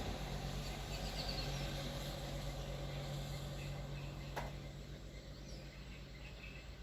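Outdoor ambience: a steady low hum under a background haze, with a few faint bird chirps and one sharp click about four and a half seconds in.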